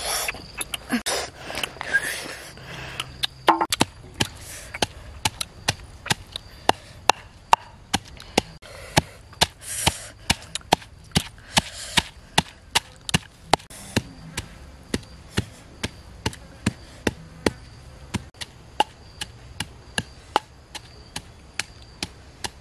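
Wooden pestle pounding in a wooden mortar: a steady beat of sharp knocks, about two to three a second, starting a few seconds in.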